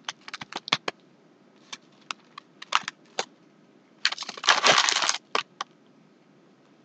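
Crunchy Chips Ahoy cookies being bitten and chewed close to the microphone. Scattered crisp crunches come through, with a denser stretch of crunching about four seconds in.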